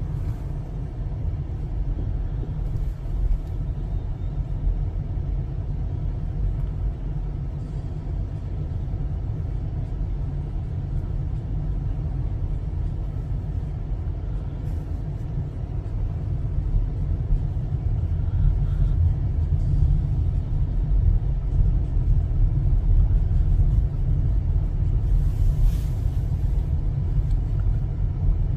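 Low, steady rumble of a car driving, heard from inside the cabin, growing a little louder about two-thirds of the way through. A brief hiss comes near the end.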